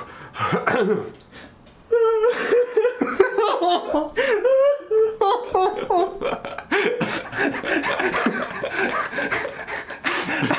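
Two men laughing hard together. After a quieter first couple of seconds, the laughter breaks out suddenly and keeps going.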